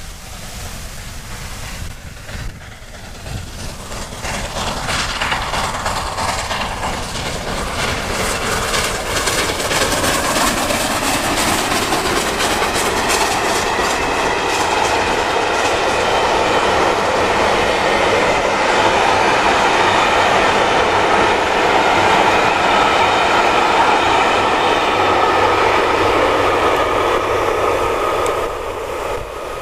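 A steam-hauled train passing, headed by LNER A4 Pacific 60019 Bittern, a three-cylinder streamlined locomotive. The sound builds over the first ten seconds as the train approaches. The coaches then roll by with a steady rumble and the clickety-clack of wheels, falling away sharply near the end.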